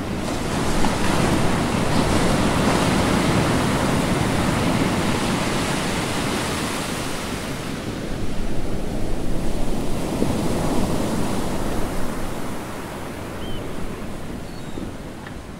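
Wind buffeting the microphone over the wash of the sea: a loud, steady rushing noise, heaviest in the low end, easing somewhat in the last few seconds.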